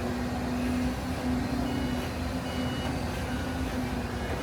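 Heavy machinery's engine running with a low rumble and a steady low tone, which breaks into an irregular on-off pulsing about a second in.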